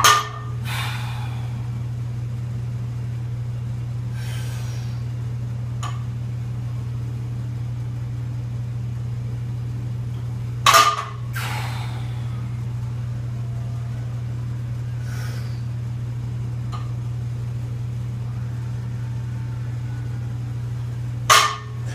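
A loaded barbell with rubber bumper plates is set down on a rubber floor mat three times, about ten seconds apart, as each deadlift rep touches the floor. A steady low hum runs underneath.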